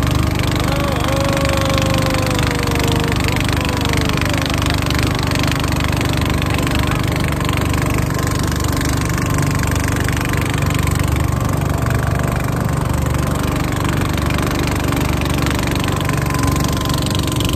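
Small motorboat's engine running steadily under way.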